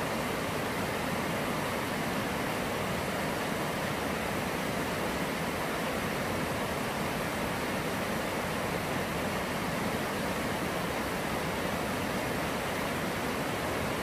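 Mountain stream rushing over boulders and small rapids: a steady, unbroken sound of running water.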